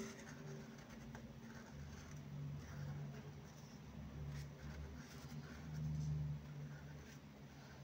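Chisel-tip felt marker scratching softly over paper as calligraphy letters are stroked in, under a low hum that swells now and then, most strongly about six seconds in.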